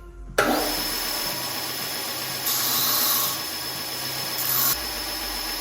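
Linisher (belt sander) starting suddenly about half a second in and running with a steady high whine as steel brackets are ground clean on the belt. The grinding is louder for a spell around three seconds in and briefly again near the end.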